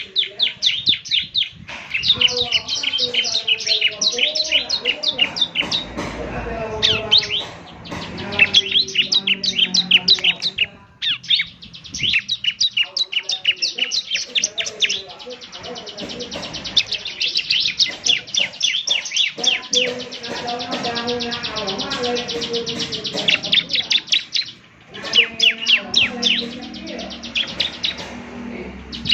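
Bar-winged prinia (ciblek) singing: rapid, high chirping phrases and fast trills in repeated bursts, with one long even trill in the middle and a few short breaks.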